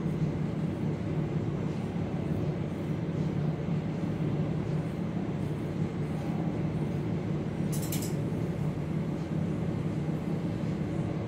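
A steady low mechanical hum, like a motor or fan running, with one short sharp click about eight seconds in.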